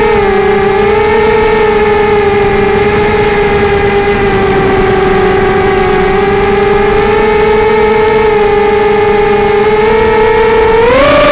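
Quadcopter's four Emax 1804 brushless motors spinning 5x3 propellers, a steady whine in flight that wavers slightly in pitch, then rises sharply near the end as the throttle goes up.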